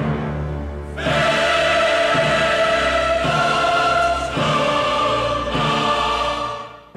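Intro music with choir-like voices holding sustained chords over a low bass. It swells about a second in and fades out near the end.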